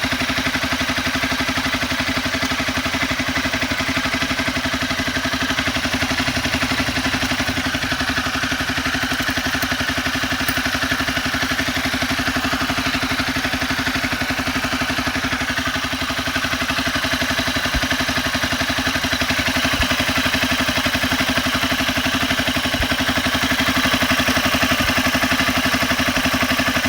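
Honda CBR250R single-cylinder engine idling steadily, with a light clatter that the owner puts down to a loose timing chain.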